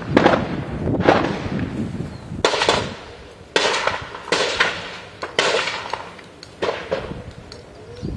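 Gunfire in a street battle: single shots and short bursts about once a second at an uneven pace, each cracking sharply and echoing off the surroundings as it fades.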